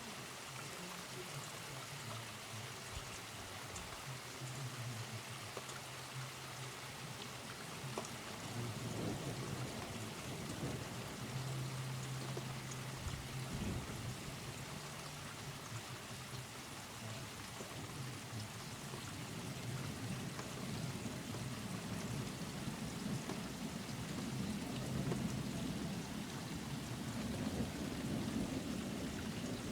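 Steady rain falling during a thunderstorm, with low rumbles of thunder building about nine seconds in and again through the last third.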